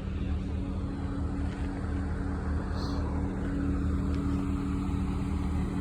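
Car engine running steadily, its pitch holding level with a low hum underneath.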